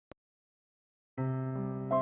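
Soft electric piano intro music begins about a second in with sustained chords, after a brief click at the start.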